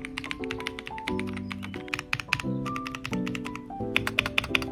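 Rapid typing on a 60% mechanical keyboard: a dense run of sharp key clicks in quick bursts, played as a sound test. Background music with sustained chords plays under it.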